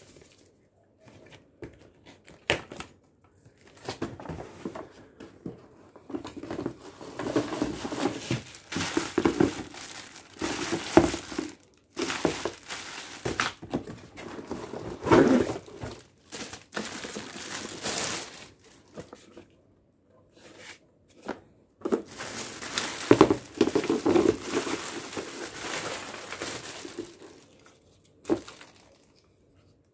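Plastic wrapping crinkling and cardboard packaging rustling and knocking as parts are pulled out of a box, in irregular bursts with a short pause about two-thirds of the way through.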